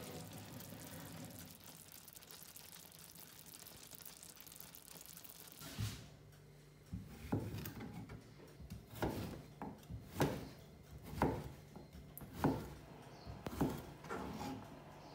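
Kitchen knife chopping a courgette on a plastic cutting board: sharp knocks of the blade striking the board, roughly one a second, starting about six seconds in. Before the chopping there is only a faint steady hiss.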